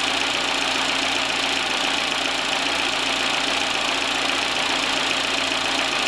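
A steady mechanical hum under an even hiss, unchanging throughout.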